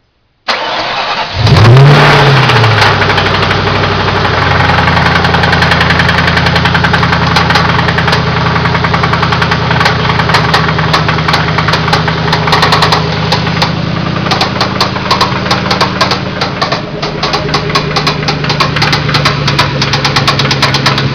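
Car engine cranking, catching about a second in, flaring briefly and settling to a steady idle. A rapid metallic knock runs through it, the sign of a spun bearing.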